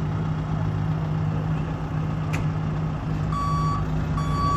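A heavy construction vehicle's engine running steadily, with its reversing alarm starting to beep about three seconds in: two beeps of one high tone, evenly spaced.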